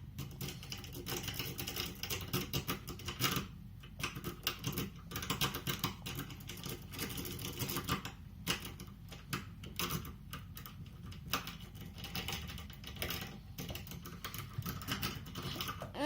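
Rapid, irregular metallic clicking and rattling of a pick working the wafers of a small Ojmar wafer cabinet lock, with short pauses, as the lock is being picked open.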